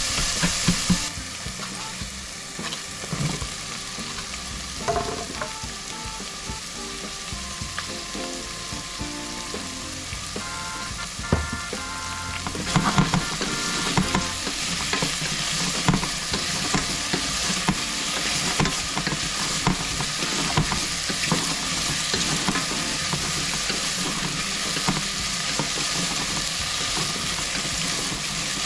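Diced zucchini and okra sizzling in hot olive oil in a stainless steel pot while a wooden spatula stirs them, with occasional knocks of the spatula against the pot. The sizzling grows louder about halfway through.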